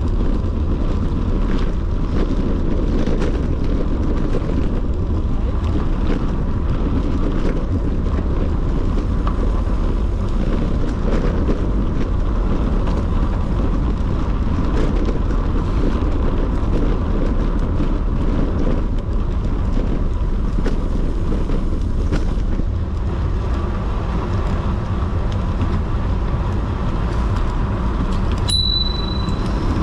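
Wind rushing over the microphone with tyre and road noise from a bicycle on a fast descent, a steady low roar. Near the end, one short high beep.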